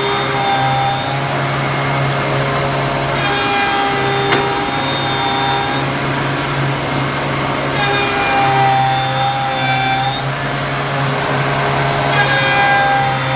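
4-axis CNC wood lathe cutting a turning workpiece: a steady motor hum, with a high whine and wood-cutting noise that rise and fall in repeated passes about every four to five seconds.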